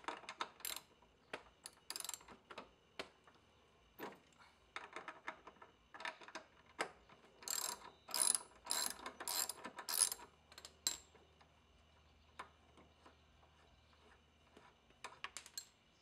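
Socket ratchet clicking in several bursts of rapid clicks as it unscrews the 14 mm rear-wheel bolt of a Honda HRX217 mower. The longest, loudest run of clicks comes about halfway through.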